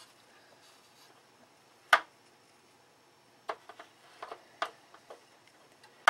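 Handling noise at a balsa model-airplane wing: one sharp click about two seconds in, then a short run of lighter clicks and taps as fingers work the bellcrank and its pushrod among the wooden ribs.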